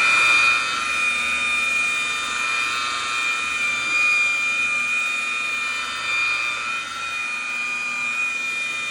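High-speed electric rotary buffer running steadily with a high whine while polishing a headlight lens with cutting cream.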